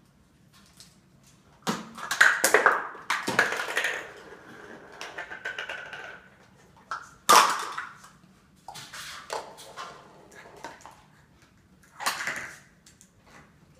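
Plastic stacking cups clattering and bouncing on a kitchen countertop as a cockatoo knocks the cup tower down, in several bursts of knocks; the sharpest knock comes about seven seconds in.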